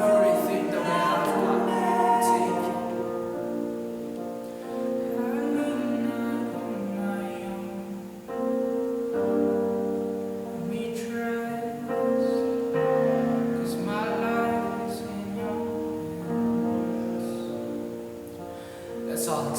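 Worship song: voices singing held notes over instrumental accompaniment.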